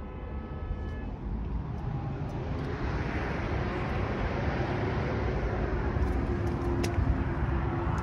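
Steady outdoor rumble of road traffic and wind, growing louder, with a few light clicks near the end.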